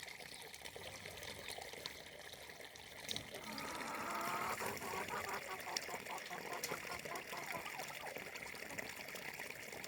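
Water of a small stream running steadily. From about three seconds in, a louder, rapidly pulsing sound joins it for a few seconds.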